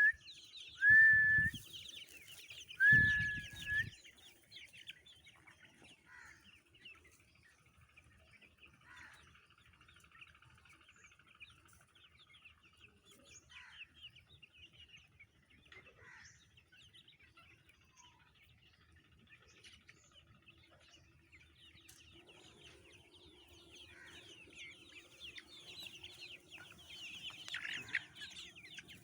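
A flock of chickens clucking and chirping, with three loud, short, steady-pitched calls in the first four seconds. The chatter thins out, then grows busier again near the end.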